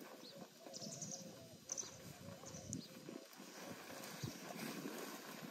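Footsteps scuffing on sand and handling of a pop-up tent's fabric and poles, a run of short irregular knocks and rustles. Birds chirp here and there, and a faint wavering tone runs in the background.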